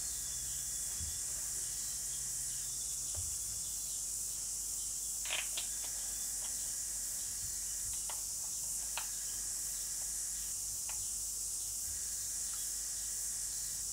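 Steady high-pitched hiss of recording noise, with a few faint short clicks scattered through it.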